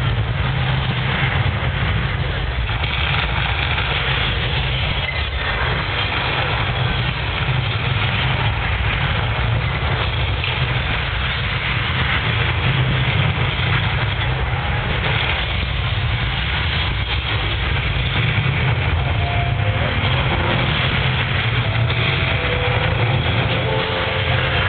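Projection show's soundtrack over outdoor loudspeakers: a loud, steady low rumble under a noisy hiss. A few held musical notes come in near the end.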